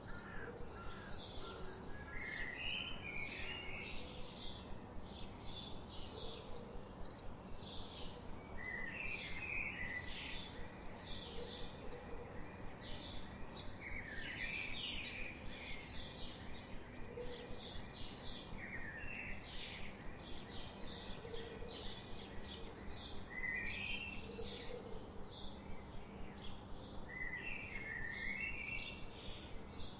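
Birds calling: a steady run of short high chirps, two or three a second, with a lower warbling phrase every few seconds, over steady background noise.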